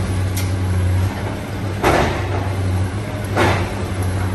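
Komatsu hydraulic excavator's diesel engine running steadily while it demolishes a building, with two loud crashes of rubble about a second and a half apart.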